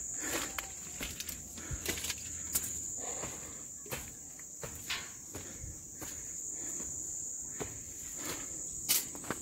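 Steady high-pitched chirring of insects, crickets or similar, with irregular footsteps and small knocks on a stone path over it.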